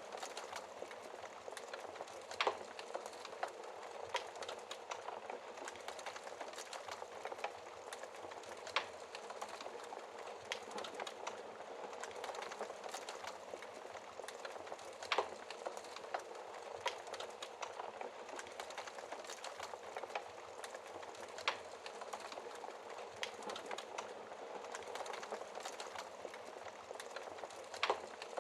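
Wood fire burning in a fireplace, crackling steadily with many small ticks and, every few seconds, a sharper, louder pop.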